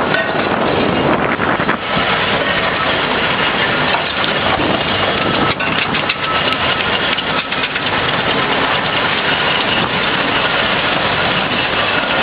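Steam road engine running as it moves across the arena: a loud, steady mechanical noise.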